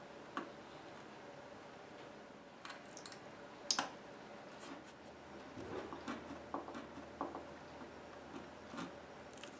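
Scattered small clicks and scrapes of pointed hand tools picking at wood and veneer, the sharpest tick a little under four seconds in and a run of lighter ticks after it, over a faint steady hum.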